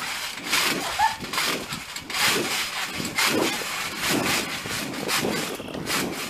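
Feet landing on a trampoline mat strewn with Orbeez water beads, the mat jolting and the beads scattering in a repeated rustling, about twice a second.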